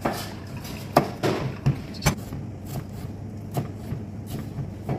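Kitchen work sounds: scattered knocks and clatter, the sharpest about a second in and another about two seconds in, over a steady low hum.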